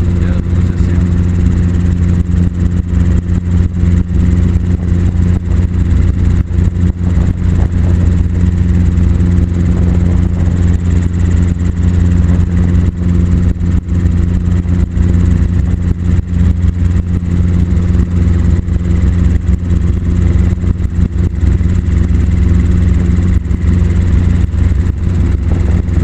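Helicopter's engine and rotors running steadily in forward flight, heard from inside the cabin as a loud, even drone.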